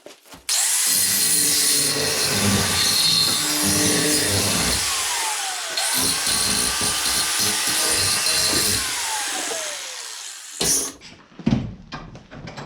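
Electric grinder grinding the top of a welded steel piece to round it off. It runs in two bursts of about four seconds each, and after each one the motor's whine winds down. Two sharp knocks follow near the end.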